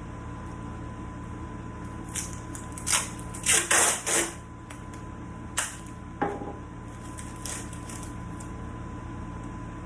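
Several short, hissy rustling and scraping sounds, loudest about three to four seconds in, over a steady background hum with a faint high tone.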